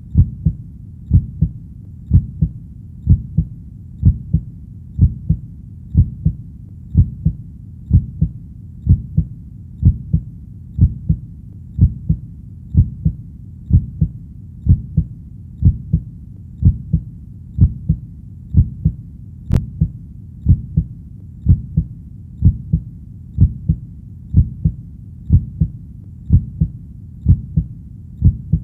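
Heartbeat: steady lub-dub pairs of low, dull thumps, a stronger beat followed closely by a weaker one, repeating evenly about once a second.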